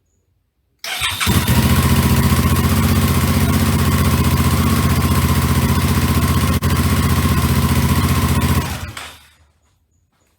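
Suzuki V-Strom 650's V-twin engine started, catching about a second in and idling steadily, loud through the exhaust, for about eight seconds before being switched off and dying away.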